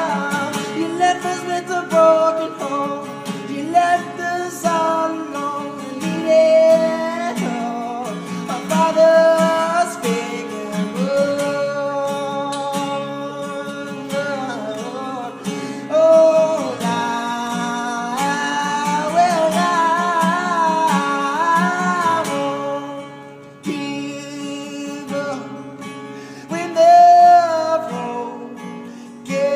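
Acoustic guitar accompaniment with a held, wavering sung melody line over it.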